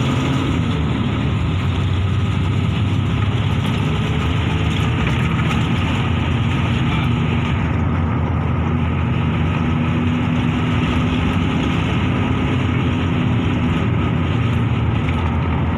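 Coach bus engine running steadily under way, heard from inside the cabin as a low, even hum with road noise.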